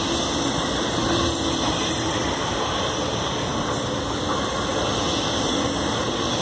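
MTR electric multiple-unit commuter train running past close by: a steady rushing rumble of wheels on rail and running gear as the carriages go by.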